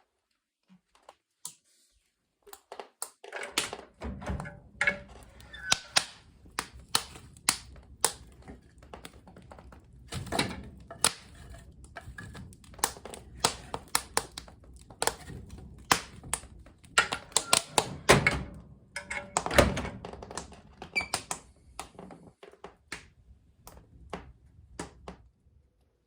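Irregular run of sharp clicks, taps and knocks, some heavier, over a low rumble.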